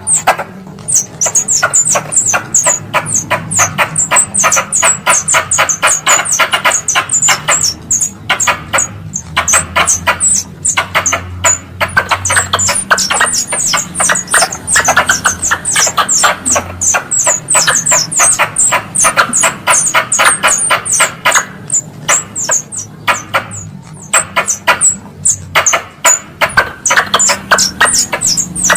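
Wild squirrel lure calls: a fast, unbroken run of sharp chattering chirps, several a second, with short pauses now and then.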